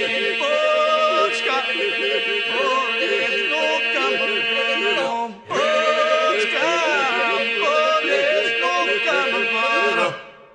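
Albanian Lab-style ilahi: voices singing an ornamented, sliding melody over a steady held drone. It breaks off briefly about halfway through, resumes, and ends about ten seconds in, fading out.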